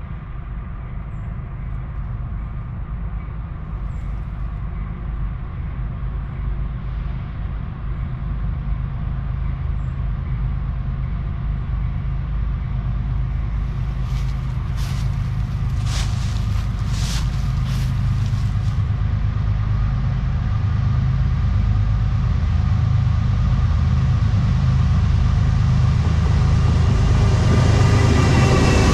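Approaching CSX freight train, led by a GE ES44DC diesel locomotive: a low rumble that grows steadily louder as the train draws near. The lead locomotive reaches the listener near the end, where the sound is loudest and a set of tones bends downward in pitch.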